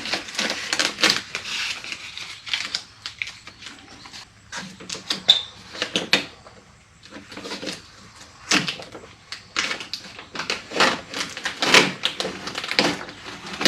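Plastic inner door lining and packing tape being peeled and pulled away from a truck door: irregular crinkling, rustling and sharp clicks with short pauses.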